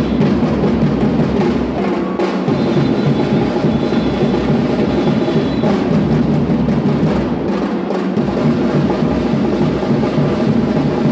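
Batucada percussion music: loud, dense drumming with bass drum driving a steady groove. The deepest bass drops out briefly twice, about two seconds in and again past seven seconds.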